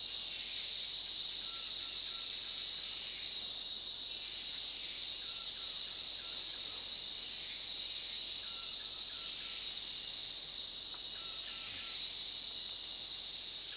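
Dense, steady, high-pitched insect chorus of forest crickets or cicadas, with faint short lower notes recurring in small groups every couple of seconds.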